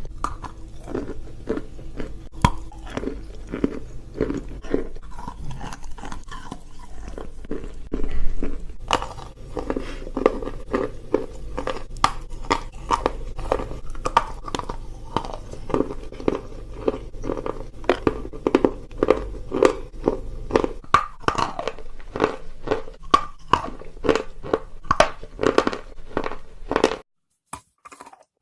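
Close-miked chewing of wet chalk: a long run of crunches in quick succession. Near the end the background hum drops away and the last few crunches are softer.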